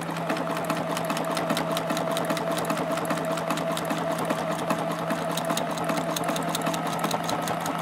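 Juki F600 computerized sewing machine running steadily, stitching out an automatic reinforced buttonhole with its buttonhole foot: a rapid, even needle clatter over the steady hum of the motor.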